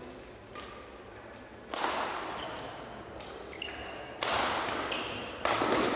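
Badminton rally: rackets striking the shuttlecock, with three hard hits about one and a half to two and a half seconds apart and lighter strikes between, each echoing in the hall. Short squeaks of court shoes on the floor come between the hits.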